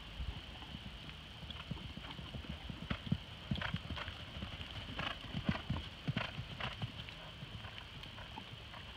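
Horse's hoofbeats cantering on sand footing: a run of soft thuds with some sharper clicks, loudest in the middle as the horse passes close, then fading near the end as it moves away.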